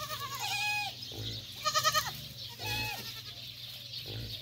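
Goats bleating: about four calls in quick succession, one of them with a rapid wavering pulse.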